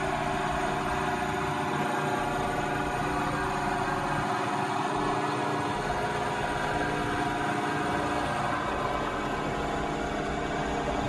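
Vertical milling machine face milling a metal block: the spindle and cutter run steadily while the table feeds the workpiece past the cutter, giving an even machine hum made of many steady tones.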